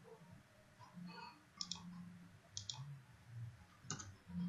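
Computer mouse button clicking: three quiet press-and-release clicks about a second apart.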